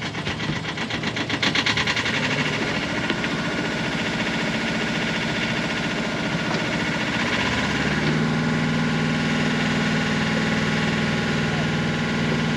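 Sailboat's newly rebuilt inboard engine running with a fast, even beat. About eight seconds in its note changes to a steadier low hum.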